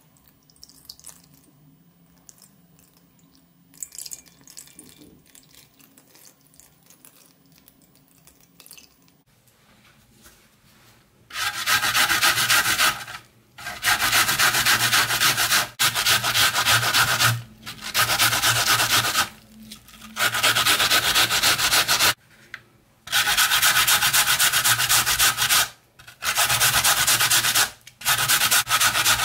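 An onion and then a peeled potato being grated by hand on a metal box grater: rapid rasping strokes in runs of a couple of seconds with short breaks between. They start about a third of the way in, after a quiet stretch.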